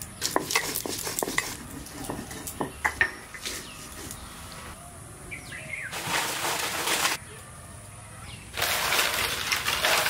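Stone roller knocking and scraping on a grinding slab (shil-nora) as green and red chillies are ground, heard as a run of sharp clicks and knocks over the first few seconds. A bird chirps once about five seconds in. Two stretches of steady hiss follow, near the middle and again near the end.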